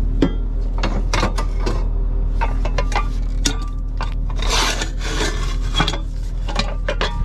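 Steel tow-dolly parts being handled, with repeated clanks and metal scraping on metal and a longer scrape about halfway through, over the steady hum of the tow truck's idling diesel engine.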